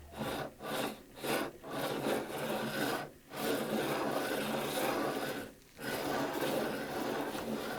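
Computer mouse slid back and forth over a hard, non-cloth mousepad, its feet scraping with a rasping noise: a few short strokes, then longer sweeps. The scraping is the sign that this mouse does not suit this hard pad, which the owner judges not compatible.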